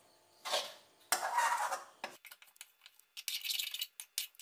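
A spatula scraping and stirring cooked chicken pieces around an aluminium kadai, lifting the browned bits off the pan's bottom into the meat. There are a few separate scrapes, then a quicker run of brighter scrapes and clicks near the end.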